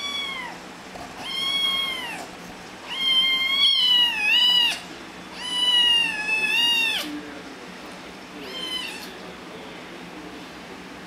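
A cat meowing repeatedly: about six long, high-pitched meows, each rising and then falling in pitch, the last one short and fainter.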